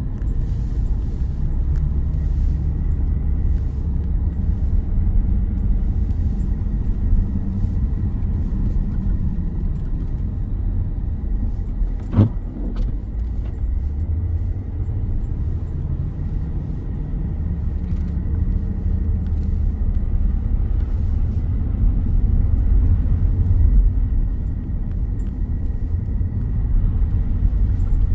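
Steady low rumble of a car driving, with a faint steady high tone over it and one sharp click about twelve seconds in.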